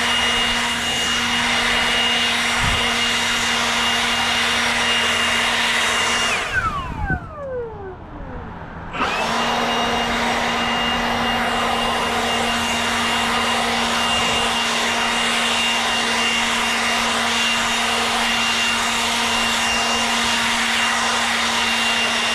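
Leaf blower running steadily at full power. About six seconds in it winds down with a falling pitch, and a few seconds later it is running again at full power.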